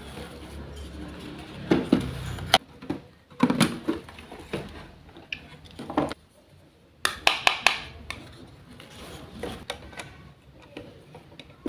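Small kitchen utensils and dishes clinking and tapping in scattered, irregular knocks, with a short break in the middle.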